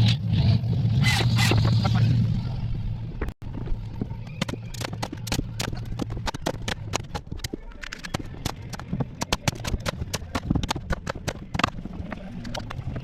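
A circular saw running for about two seconds, then a rapid, irregular string of sharp shots from a pneumatic framing nailer, several a second, driving nails into the studs of a wall frame.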